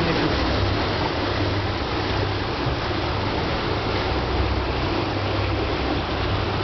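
Houseboat under way: a steady low motor hum beneath a constant rushing noise of water and wind.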